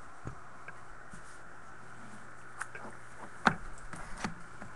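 A few light clicks and scrapes as a sealed cardboard trading-card box is handled and a small tool is worked along its edge to cut the seal. The loudest click comes about three and a half seconds in, over a steady low hum.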